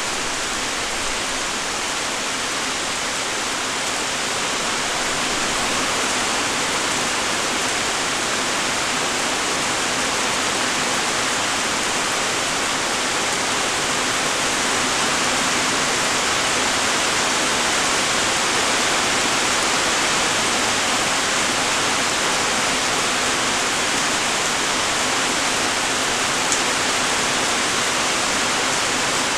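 Steady light rain: an even hiss of many small raindrops, with one sharper tick about three-quarters of the way through.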